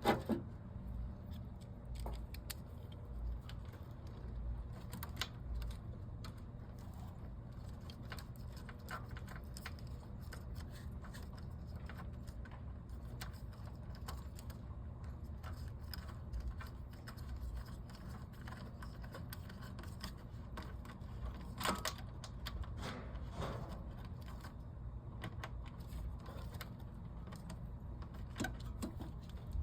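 Scattered light metallic clinks and knocks of parts and tools being handled while the new radiator and its hose fittings are worked into a car's engine bay, over a steady low hum. A brief run of louder knocks comes a little over two-thirds of the way in.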